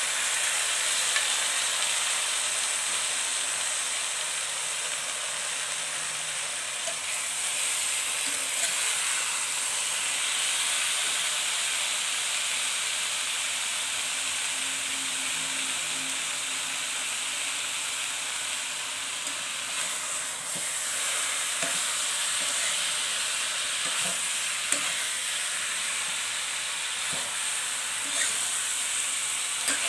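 Chicken pieces sizzling steadily in hot oil and curry paste in an aluminium electric wok as they are stir-fried with a metal spoon, with a few sharp clicks of the spoon against the pan in the second half.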